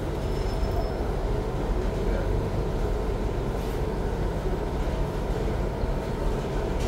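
Steady low rumble of background noise, even in level and without distinct events.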